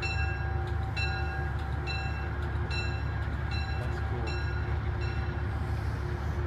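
Metro-North Hudson Line diesel push-pull train pulling out, its bell ringing a little more than once a second over a steady low engine rumble. The bell fades out about five seconds in.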